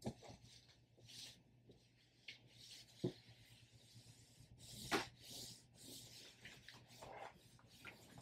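Philips STE3170 standing garment steamer's plate rubbing over a denim dress during steaming: faint, irregular swishing and rubbing strokes. Light knocks come near the start, about 3 seconds in, and a louder one about 5 seconds in.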